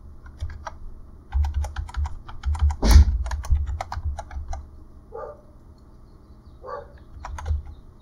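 Typing on a computer keyboard: a quick run of key clicks with one louder knock about three seconds in, then a pause and a few more keystrokes near the end.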